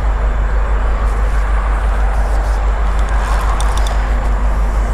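Steady low outdoor rumble with a fast-flickering level, with a few faint high clicks about three seconds in.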